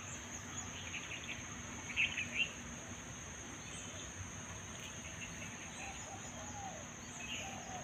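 Steady high-pitched insect drone, with a few short bird chirps about two seconds in.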